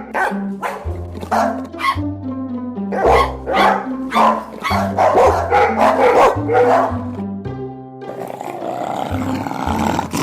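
Dogs barking repeatedly over background music with a steady stepping bass line; near the end the barks give way to a rougher, noisier sound.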